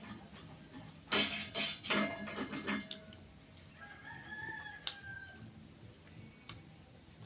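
Rooster crowing: a loud, harsh crow about a second in, then a fainter, arching crow around four seconds in.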